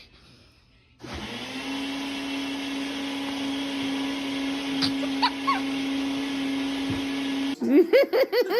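A household appliance's electric motor spins up about a second in and runs with a steady hum, then cuts off abruptly near the end, where bouncy voiced sounds like laughter begin.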